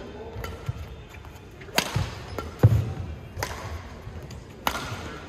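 Badminton rally: three sharp cracks of rackets striking the shuttlecock, about a second and a half apart, with a heavy thud of a player's foot landing in between.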